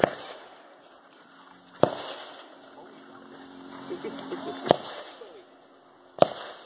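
Four separate gunshots, sharp single cracks spaced irregularly about one and a half to three seconds apart, with faint voices in between.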